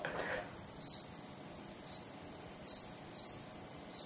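Crickets chirping steadily, a short high-pitched chirp repeating about twice a second.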